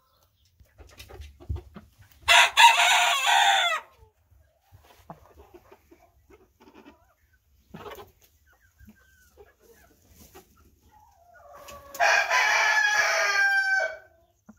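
Rooster crowing twice: a crow of about a second and a half a couple of seconds in, and another near the end. Soft clucking from the flock can be heard between the crows.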